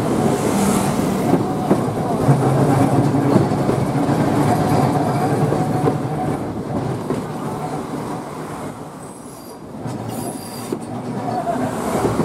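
Vintage 1904 tramcar rolling along the track, heard from aboard: a steady rumble and clatter of wheels on rail with a thin wheel squeal now and then. It grows quieter about eight seconds in, then picks up again near the end.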